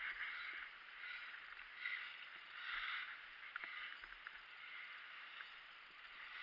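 Skis swishing and scraping over packed snow, swelling with each turn.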